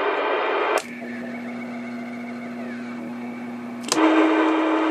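Steady hiss with a low electrical hum, broken by a sharp click about a second in, after which it turns quieter with a lower hum. A second click comes near the end, where the louder hiss and a higher hum return.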